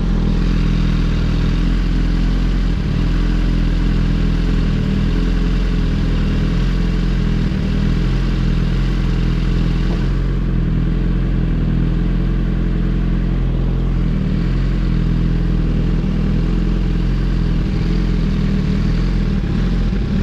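Suzuki GSX-R1000R's inline-four engine running through an untuned M4 full exhaust system while riding, holding a fairly steady engine speed.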